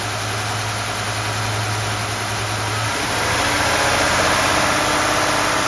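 Mercedes-Benz KE-Jetronic fuel-injected engine idling with a steady low hum; about three seconds in, the idle control valve is unplugged, the hum stops and the engine note rises and gets a little louder as the valve, no longer driven, lets in too much air.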